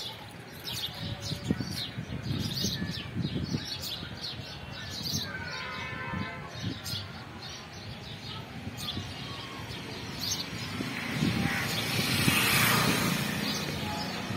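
Small birds chirping repeatedly, short high calls scattered through, over an outdoor background, with a broad rushing noise swelling and fading near the end.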